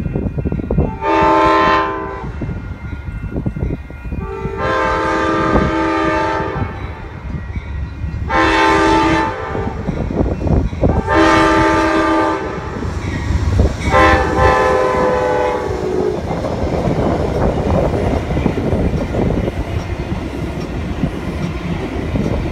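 Amtrak GE Genesis diesel locomotive at the head of a Cascades Talgo train sounds its multi-tone air horn in five blasts: short, long, short, long, long. The train then passes close by with a steady rumble and clatter of wheels on the rails.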